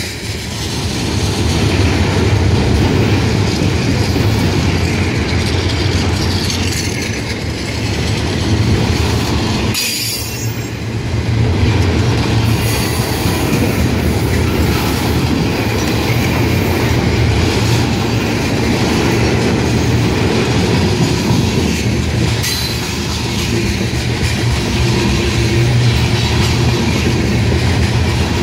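Freight train cars rolling past: a loud, steady rumble of steel wheels on the rails that dips briefly about ten seconds in.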